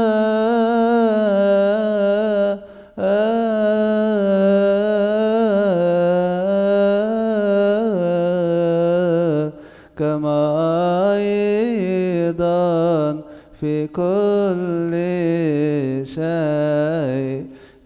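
A man's solo voice chanting a slow, melismatic Coptic liturgical melody into a microphone. He holds long notes that waver in pitch and pauses briefly for breath a few times.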